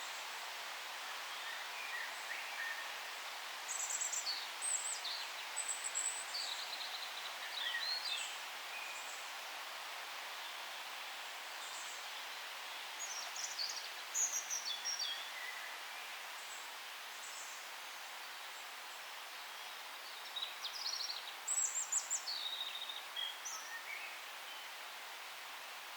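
Songbirds singing in three spells of quick, high chirps and falling whistles over a steady hiss of forest ambience.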